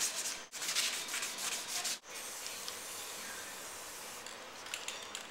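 Masking paper rustling and crinkling as it is handled and pressed over a steel trailer frame: quick scratchy strokes for the first two seconds, then a softer, steadier rustle.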